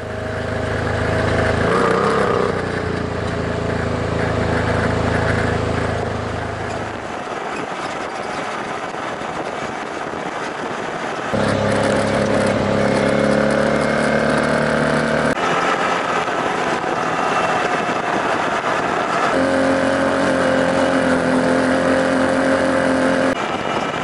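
Engine of a side-by-side off-road vehicle running steadily as it drives a sandy dirt trail, with tire and road noise. The engine note changes abruptly several times.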